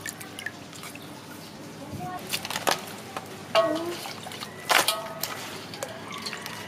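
Water sloshing and dripping as raw squid are rinsed by hand in a steel bowl, with several sharp wet slaps and splashes, the loudest about three and a half and five seconds in.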